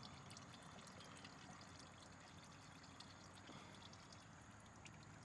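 Faint, steady trickle of engine oil draining during an oil change, with a few tiny ticks.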